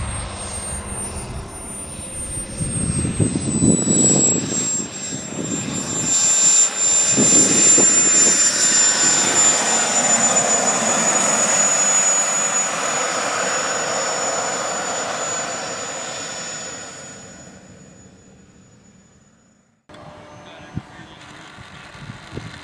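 Radio-controlled model jet flying past: a high, slightly falling whine over a rushing roar that builds to its loudest mid-pass, then fades away as the jet flies off. An abrupt cut near the end brings in quieter background sound.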